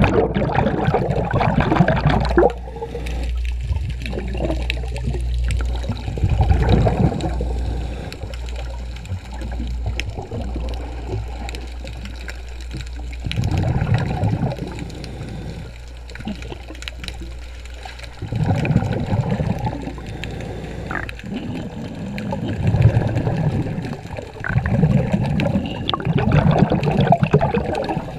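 A diver's exhaled bubbles from a scuba regulator gushing out in surges every few seconds, recorded underwater, with a low steady hum under the first part.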